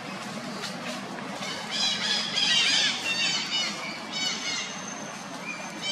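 Macaque squealing in a quick run of short high-pitched calls, loudest about two and a half seconds in. A thin steady high tone takes over near the end.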